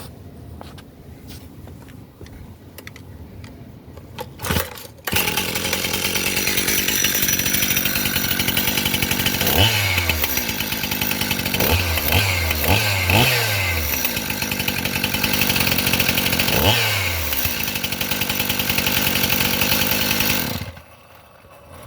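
Stihl MS 271 two-stroke chainsaw starting about five seconds in, then running with the throttle blipped several times, each rev rising and falling in pitch, before it is shut off near the end.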